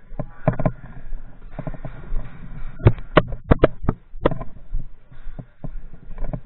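Sharp cracks and knocks of close-quarters airsoft play: a quick, uneven run of about six loud cracks in a second and a half, around three seconds in. Lighter thumps and the rustle of a player moving on foot fill the rest.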